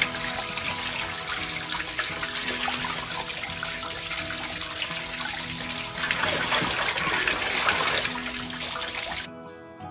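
Tap water running and splashing over hands as they rinse a piece of raw pork above a bowl in a sink, louder for a couple of seconds past the middle as the bowl is tipped and emptied. The water sound stops abruptly near the end.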